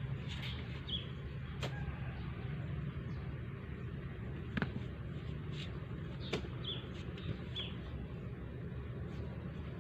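A steady low drone, with a few sharp knocks now and then and several short, high bird chirps.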